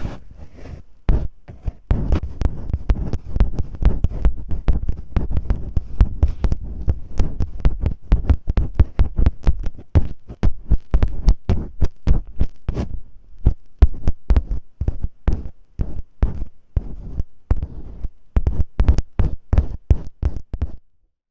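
Masking tape rubbed, pressed and peeled directly on a microphone in an ear-cleaning-style ASMR trigger: rapid, irregular sticky crackles and clicks with deep thumps against the mic. It cuts off abruptly just before the end.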